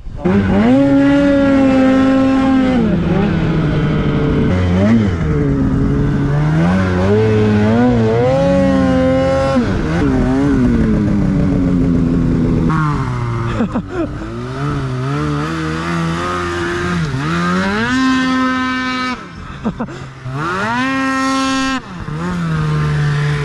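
Two-stroke mountain snowmobile engine under way, its pitch climbing and falling with the throttle over and over, held high for a few seconds at a time, with brief drops near the end.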